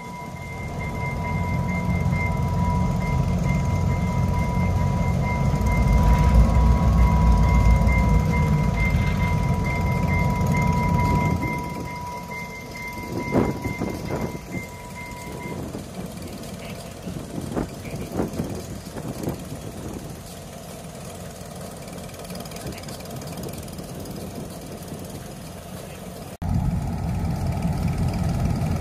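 Diesel locomotives rumbling as they pull slowly past, loudest a few seconds in, with a steady high ringing tone over the first half. A few clanks and short squeals follow, then the rumble returns after an abrupt cut near the end.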